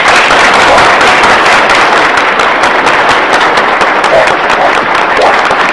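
Loud, steady applause from a large audience: a dense clatter of many hands clapping.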